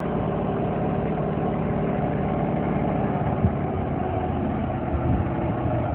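Heavy vehicle engine running steadily under a continuous low rumble, with one short knock about three and a half seconds in.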